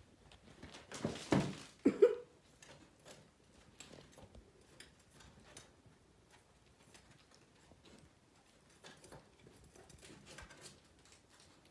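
Miniature poodle puppies playing in a dog bed of toys: soft scuffling, rustling and light clicks of paws, with a brief louder burst of noise between one and two seconds in.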